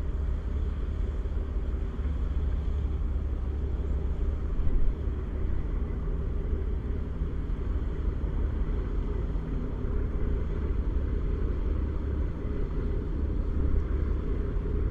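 An RNLI all-weather lifeboat's diesel engines droning steadily as the boat passes close by, mixed with a low rumble of wind on the microphone.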